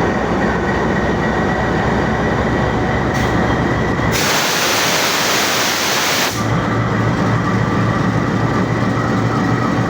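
Departing passenger train running steadily, with a loud hiss of about two seconds near the middle.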